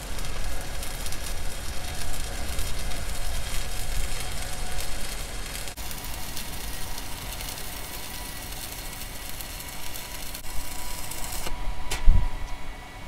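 Stick (MMA) welding arc from a WS-250 inverter welder crackling steadily as a bead is run on steel plate. The arc stops about eleven and a half seconds in, followed by a single sharp thump.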